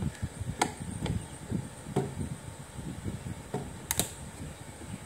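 Irregular handling knocks and clicks from working on a hi-fi unit by hand, with soft thumps between them and one sharp click about four seconds in, the loudest.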